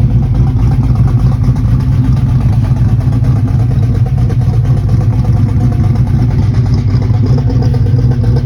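Engine running steadily with a fast, even ticking through its note, the tick the owner suspects is either a lifter tick or an exhaust leak; the engine is not running well.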